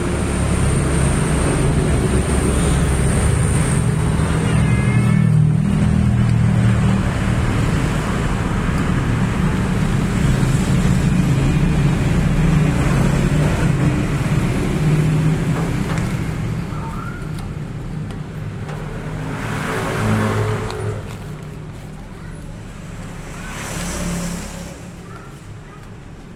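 Motor-vehicle traffic: a steady low engine rumble, then two vehicles swelling and fading as they pass, about twenty and twenty-four seconds in.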